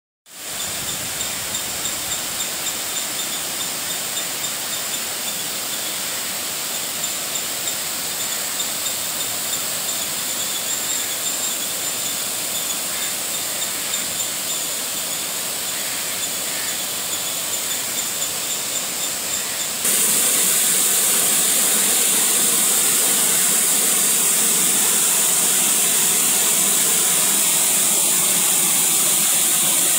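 Steady rushing of a wide waterfall, an even hiss of falling water, which jumps suddenly louder and brighter about two-thirds of the way in.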